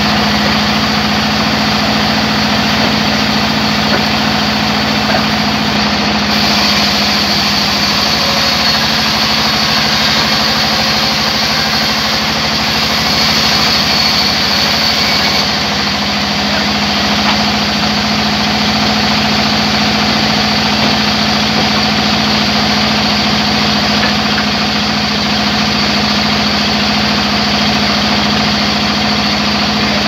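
Large wheel band saw running with a steady hum while its blade cuts wood pushed through by hand. A higher whine joins from about six seconds in until about fifteen.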